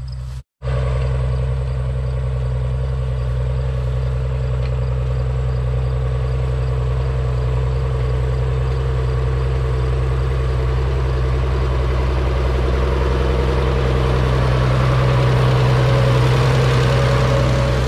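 Farmall 806's six-cylinder diesel engine running steadily as the tractor pulls a side-delivery hay rake. The sound cuts in after a brief break at the start and grows louder near the end as the tractor draws close.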